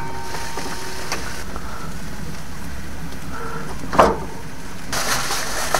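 Meat sizzling on a barbecue grill, a steady hiss over a low rumble, with one sharp clack about four seconds in.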